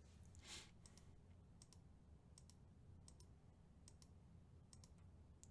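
Faint computer mouse clicks, a dozen or so at irregular spacing and often in quick pairs, over a low steady hum.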